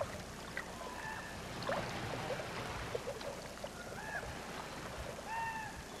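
Faint water noise with several short bird calls, each a brief arched note, the clearest about five seconds in.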